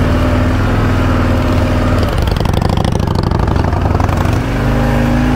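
Harley-Davidson Fat Boy 107's V-twin engine running at low speed under load through soft sand. Its revs dip briefly a little past four seconds in, then pick up again.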